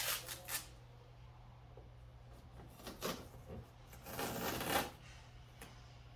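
Rustling, scraping handling noise in three short bursts, the longest about four seconds in, over a faint steady low hum.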